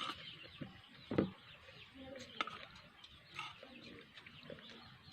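Chickens and small birds call faintly in the background. A few short crunches from chewing raw bitter gourd stand out, the loudest about a second in.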